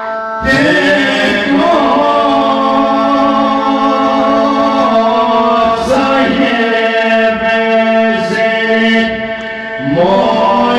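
Male vocals singing an Albanian folk song through microphones, with long bending held notes, over a steady keyboard drone. The voice breaks off briefly near the end before a new phrase begins.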